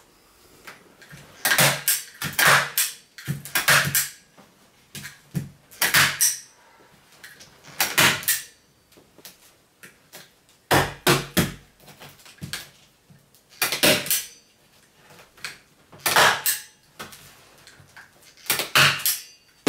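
Hand staple gun firing staples through fleece fabric into the boat frame: about a dozen sharp snaps, irregularly spaced a second or two apart and often in quick pairs.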